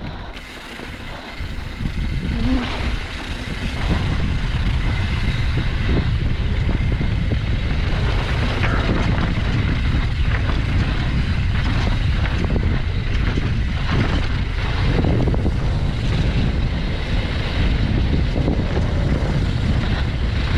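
Wind buffeting the microphone while a YT Tues downhill mountain bike runs fast over rough, rocky trail, with tyres crunching and the bike rattling in quick irregular knocks. The noise builds over the first few seconds as the bike picks up speed, then stays steady.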